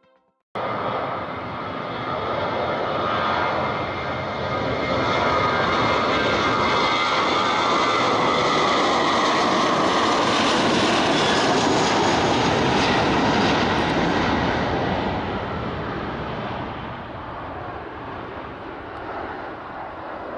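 Airliner engines passing close by, loud throughout with a high whine over the roar; it builds to its loudest in the middle and fades away over the last few seconds.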